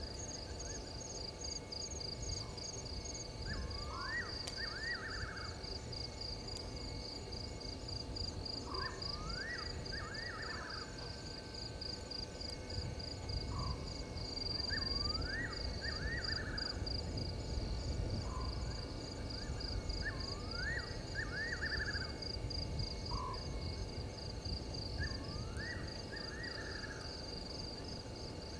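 Night bush ambience: insects trill steadily at a high pitch while an animal call repeats about every five seconds. Each call is a short low note followed by a rising note and a quick run of notes.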